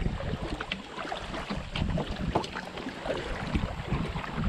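Kayak paddle strokes in shallow river water: the blades dip and pull, with small splashes and drips falling off them, and some wind rumble on the microphone.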